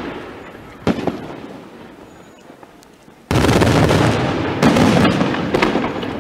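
Aerial firework shells bursting: one sharp bang about a second in, then a sudden loud barrage from about three seconds in with two more bangs, fading near the end.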